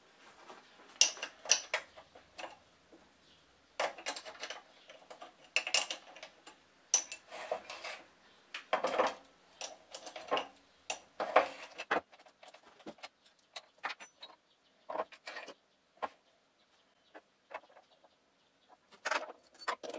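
Irregular metallic clicks and clanks from the tailstock of a Foreman TB1835 mini lathe being shifted along the cast-iron bed and worked by hand. The knocks come thick at first, thin out after about twelve seconds, and return briefly near the end.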